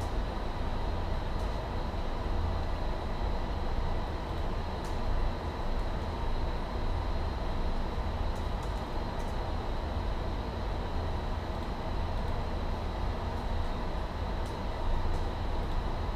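Steady low rumble of office air conditioning with a faint high whine, and a few faint clicks of typing and mouse use.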